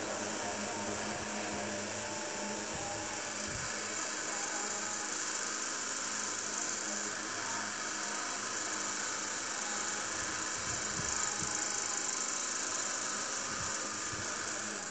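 Small electric table fan running: a steady motor hum under an even rush of air.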